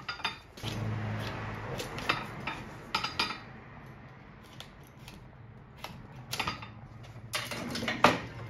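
Metal hand tools clinking and knocking on a steel workbench, with scraping and tearing as the old sole is pried and pulled off a leather work boot. Scattered sharp clicks, with the loudest knock near the end.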